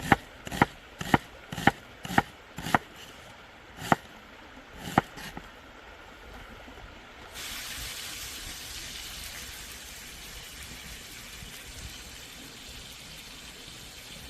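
Knife chopping on a cutting board, about two sharp strokes a second, then two slower strokes. About seven seconds in, a steady hiss starts suddenly and carries on.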